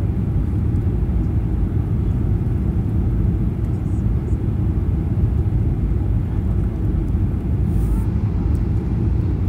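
Steady low cabin rumble of a Boeing 737-800 on final approach, heard from a window seat: the CFM56-7B turbofan engines and the airflow over the airframe.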